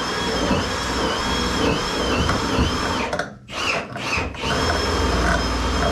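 A power tool's motor running with a whine whose pitch dips several times, as under load. It stops briefly twice about halfway through, then runs again.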